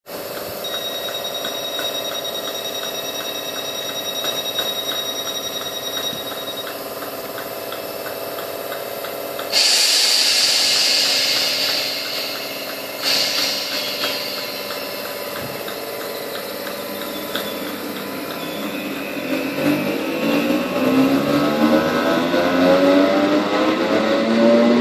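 Class 320 electric multiple unit standing at the platform with a steady hum from its equipment. A loud hiss of air comes about ten seconds in and another about three seconds later. Then the traction motors whine, rising steadily in pitch as the train pulls away and gathers speed.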